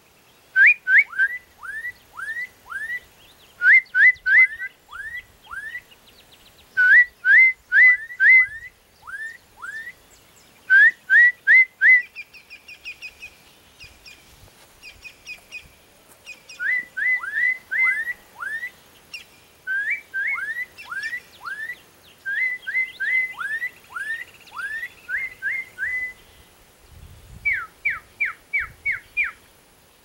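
Black-capped donacobius singing: loud, sharply slurred whistled notes repeated in runs at about three a second, with a break filled by softer, higher notes around the middle.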